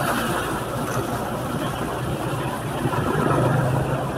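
Motorcycle riding along a wet street: its engine running with a steady low hum under wind and tyre noise, the hum a little stronger about three seconds in.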